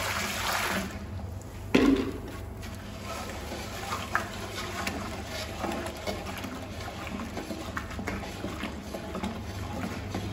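Water pouring from a plastic jug into a steel pot of sodium hydroxide flakes for about the first second and a half, then a sharp knock. After that, a wooden stick stirring the solution, with small scrapes and knocks against the steel pot.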